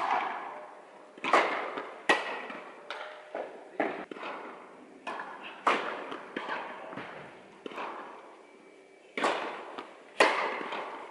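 Tennis rally: sharp pops of racket strings hitting the ball and the ball bouncing on the court, about one a second at an uneven pace, each echoing in a large indoor hall.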